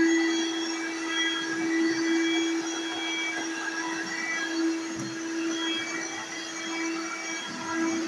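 Red corded stick vacuum cleaner running as it is pushed across a hardwood floor: a steady motor hum with a fluttering higher whine above it.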